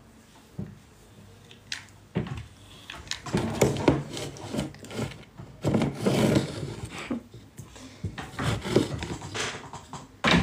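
Irregular rubbing and scraping close to the microphone, starting about two seconds in and coming in loud bursts, after a single light knock.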